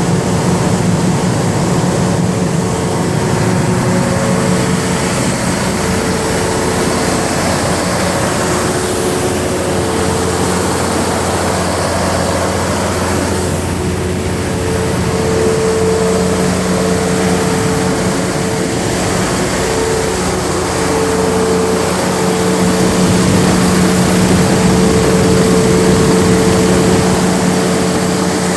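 Large Perkins diesel generator set running steadily just after being started, its engine freshly overhauled and repaired. It is a continuous heavy engine drone with a steady hum and a higher whine.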